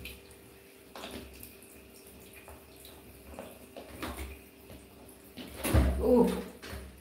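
A cloth towel rubbing and rustling as a wet baby monkey is dried, with soft scattered knocks and a louder rustling bump about six seconds in.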